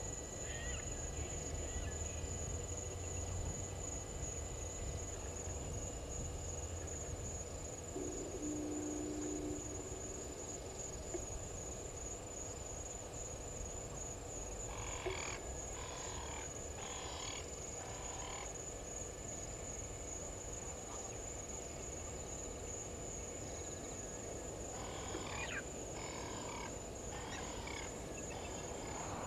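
Bush ambience with a steady low rumble and a thin, steady high whine. Two runs of short, rapidly repeated animal call notes come about halfway through and again near the end.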